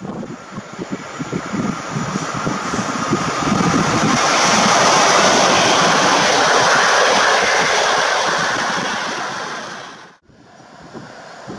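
EP07 electric locomotive and its passenger coaches passing through at speed: the rumble of wheels and rushing noise grows and is loudest as the coaches go by. The sound breaks off abruptly about ten seconds in, then resumes more quietly as the train draws away.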